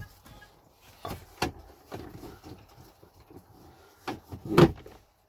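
Dashboard trim parts being handled by hand: a few separate clicks and knocks, the loudest about four and a half seconds in.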